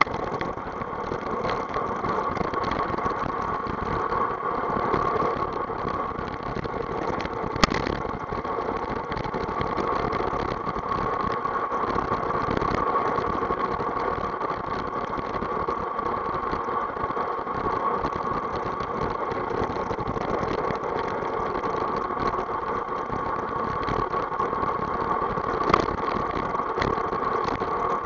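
Steady wind and tyre noise from an unpowered gravity bike rolling fast downhill on asphalt. There is a sharp knock about eight seconds in and another near the end.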